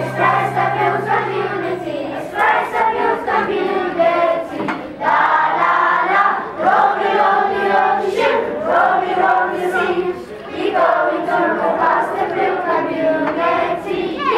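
A group of voices singing together in chorus, with a steady low tone underneath that stops about two seconds in.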